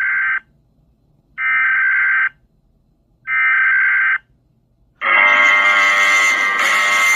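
Electronic alarm sounding: long beeps of about a second each, two seconds apart, then a continuous harsher alarm tone starting about five seconds in.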